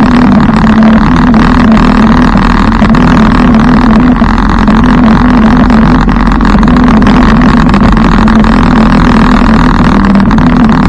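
Motorcycle engine running steadily at cruising speed, heard from on board the bike, with a steady drone that wavers slightly in pitch.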